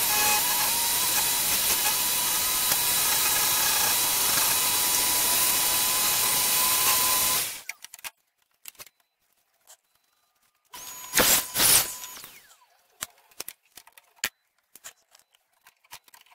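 A jigsaw mounted under a table running and cutting wood, a steady whine whose pitch wavers slightly, which stops suddenly about halfway through. After it, a few light clicks of handling and one short loud burst of noise.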